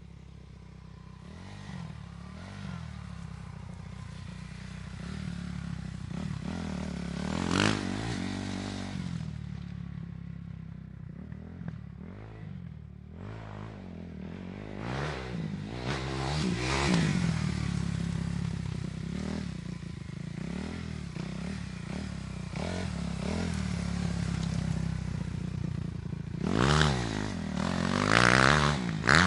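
Motorcycle engine running, its note rising and falling, with three louder swells: about a quarter of the way in, a little past halfway, and near the end.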